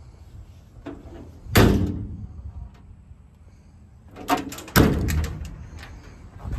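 Metal compartment doors of a utility truck's service body being shut with two loud bangs about three seconds apart, the second preceded by a few lighter clicks.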